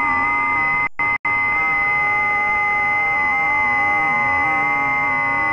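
Unidentified radio signal received in AM on a WebSDR near 1841.5 kHz: several steady tones, the strongest a high one, over static, with a lower tone that wavers up and down. The audio cuts out twice, briefly, about a second in.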